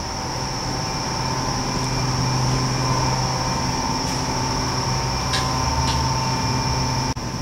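Steady room hum with a low drone and a faint high whine, with a few faint clicks in the second half.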